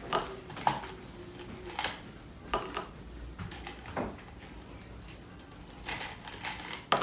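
Mike and Ike candies clicking and rattling against a clear plastic cup as a hand digs through them, in scattered short clatters, with a sharper knock near the end.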